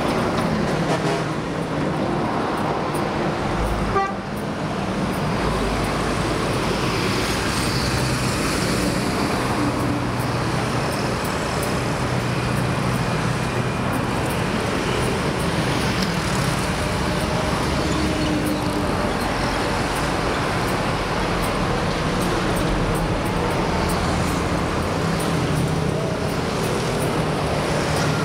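Steady highway traffic: passing motorbikes and cars running by, with a horn tooting now and then.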